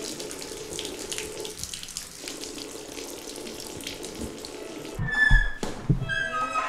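Tap water running steadily into a sink while hands are scrubbed under the stream. About five seconds in, the water gives way to a few heavy thuds and some short steady tones.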